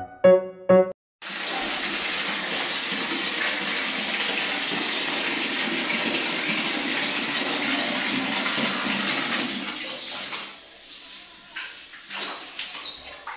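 Tap water pouring from a hose into a large metal basin, a steady rushing splash that stops about ten seconds in. A few short high squeaks follow near the end, and a few piano notes sound in the first second.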